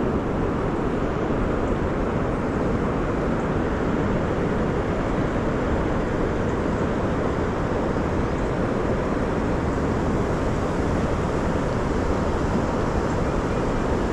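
Steady rushing rumble of wind buffeting the microphone, unbroken throughout.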